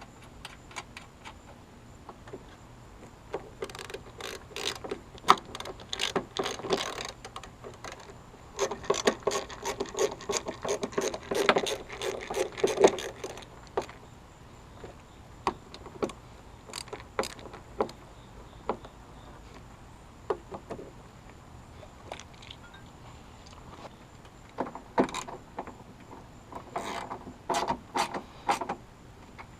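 Hand ratchet wrench clicking in several bursts of rapid, even clicks, with scattered single clicks and taps of tools and parts between the bursts.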